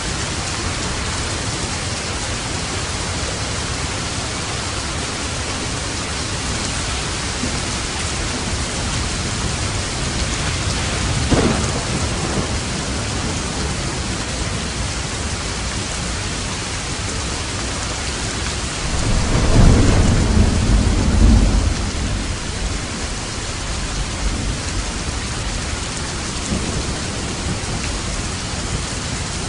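Steady rain falling, with thunder twice: a short crack about a third of the way in, then a louder low rumble rolling for a few seconds past the middle.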